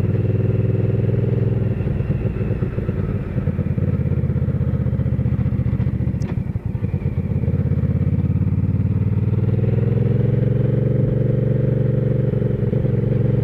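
2009 Hyosung GV650's V-twin engine running as the bike cruises. It eases off and roughens for a few seconds in the middle, then picks up again with a slight rise in pitch about two-thirds of the way through.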